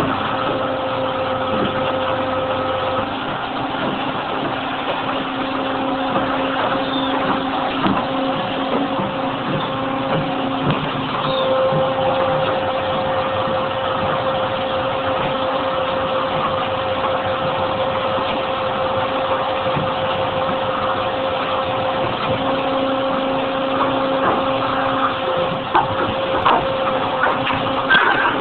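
Nissei FS 260 injection molding machine running: a steady hum over a hiss, with a few light knocks near the end.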